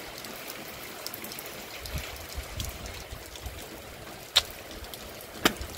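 Rain falling steadily, an even hiss of water with scattered drip ticks. Two sharper taps come about four and a half seconds in and near the end.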